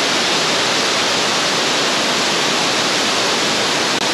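Waterfall spilling in many thin streams down a mossy cliff into a rocky river: a loud, steady rush of falling water.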